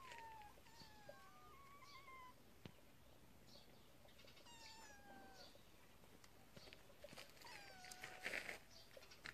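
Kittens mewing faintly: about five short, high mews, most sliding down in pitch. A brief scuffing noise comes near the end.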